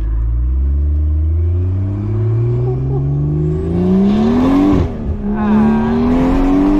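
BMW 340i's turbocharged B58 inline-six accelerating hard with an open dump and AWE track exhaust: the engine note climbs steadily for nearly five seconds, drops sharply at an upshift, then climbs again. A rushing hiss rides over the engine at the higher revs.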